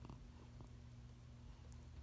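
Domestic cat purring faintly, a low steady rumble.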